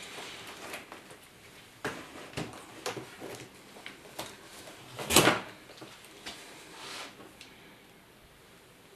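Light clicks and knocks of plastic and metal as a replacement laptop LCD panel is handled and lined up in the screen lid, with one louder knock about five seconds in.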